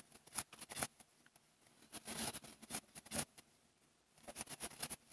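Faint clicks and rustling of a crochet hook and yarn being worked by hand: scattered short ticks near the start, a longer rustle in the middle, and a quick run of ticks near the end.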